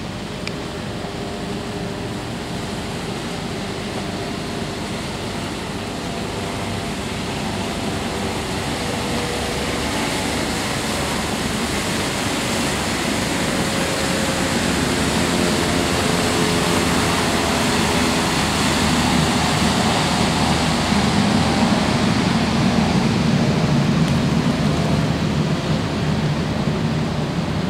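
Steady rush of river water and wind with a low engine hum from passing vessels. It grows louder through the second half as a fast waterbus passes close and its wake churns the water.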